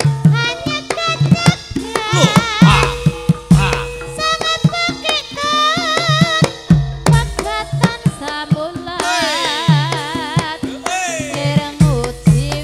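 Javanese gamelan (karawitan) music accompanying a tayub dance. Hand-drum strokes beat over a steady sustained gamelan tone, while a high melody line wavers with strong vibrato.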